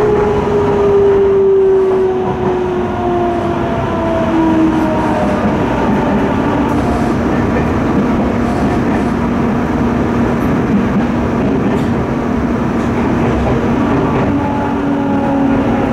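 Tokyo Metro 05N-series electric train heard from inside the car: a steady rumble of wheels on rail under a whine from the traction motors and inverter. The whine slides slowly down in pitch as the train brakes on its approach to the next station.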